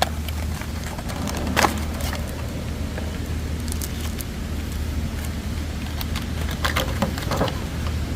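Steady low hum of a car idling, heard from inside the cabin, under the crackles and clicks of a trading card deck being unwrapped and handled. The loudest clicks come about a second and a half in and again near seven seconds.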